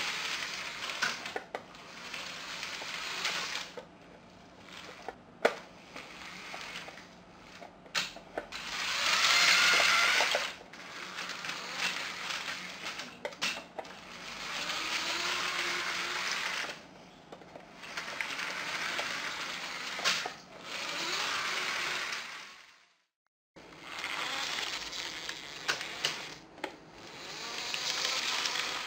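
Vintage 9V Lego train motors whirring and wheels rattling over the plastic track, growing louder and fading several times as trains pass close by, with sharp clicks in between.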